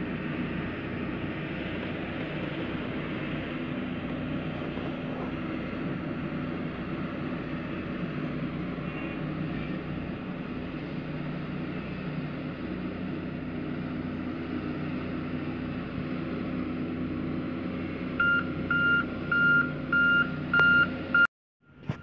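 Sakai SV525D vibratory road roller's diesel engine running steadily as it drives over loose earth. Near the end its reversing alarm beeps about six times, roughly two a second, before the sound cuts off abruptly.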